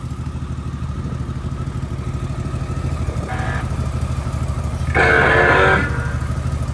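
Honda Valkyrie's flat-six engine idling with a steady low rumble. About three seconds in a brief faint snatch of guitar music plays, and about five seconds in a louder burst of it lasts nearly a second, from the bike's sound system.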